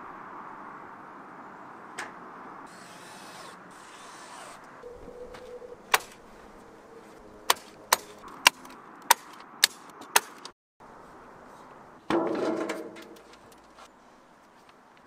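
Hand work on a metal roof: a run of seven sharp clicks or taps about half a second apart, then after a brief dropout a loud rustling scrape of sheet material for about a second.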